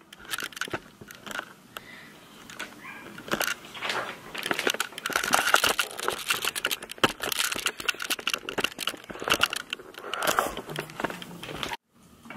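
Crinkling, rustling and clicking handling noise from a camera being grabbed and moved about close to its microphone. It cuts off suddenly near the end.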